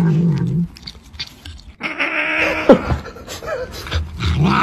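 A cat growling with a low, wavering rumble as it bites into a banana. The growl stops for about two seconds partway through, leaving softer noises, and starts again near the end.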